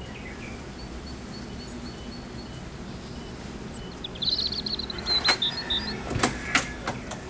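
Electronic keypad of a digital door lock beeping in a quick run of high beeps as its keys are pressed, about four seconds in, then several sharp clicks from the lock.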